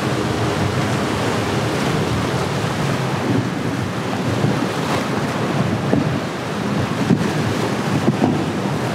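A single Yamaha 150 outboard on a passing center-console boat hums steadily and fades out in the first second or two. After that the sound is surf and hull spray with wind buffeting the microphone, which stays steady and loud.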